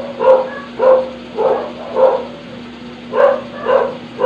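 A dog barking repeatedly, about two barks a second, with a short pause in the middle.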